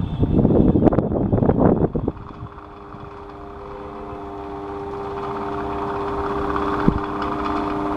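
Electric fan running: for about the first two seconds its airflow buffets the microphone in a gusty rumble, then a steady motor hum with an airy rush that slowly grows louder, and one sharp click near the end.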